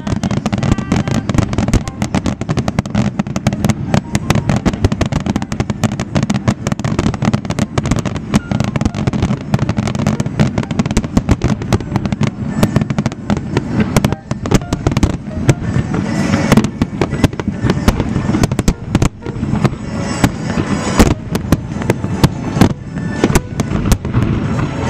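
Fireworks display: a dense barrage of aerial shell bursts, bangs following one another rapidly the whole way through.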